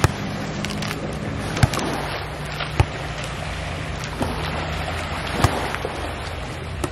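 A boat motor runs with a steady low hum over water and wind noise. About five short, sharp knocks sound through it.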